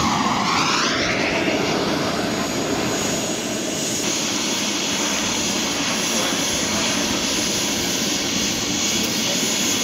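Model gas-turbine jet making a low, fast flypast: its whine drops in pitch as it passes in the first second or so, then a steady jet rush carries on.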